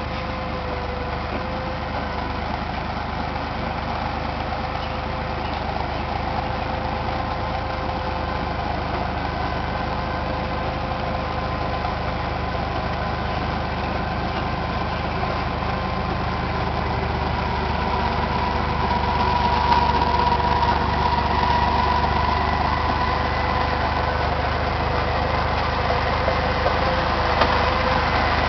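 Bulldozer's diesel engine running steadily, with a steady whine over the engine hum. The sound grows gradually louder in the second half.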